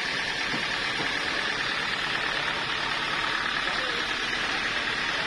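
Sawmill saw machinery running steadily, a constant whirring noise with no breaks.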